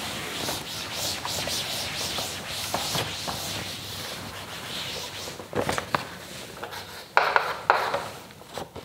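A cloth duster rubbing chalk off a chalkboard in repeated back-and-forth wiping strokes, followed near the end by a few shorter, louder scrapes of chalk writing on the board.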